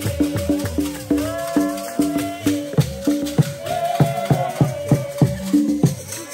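Voices singing together over shaken rattles that keep a steady beat of about three to four strokes a second.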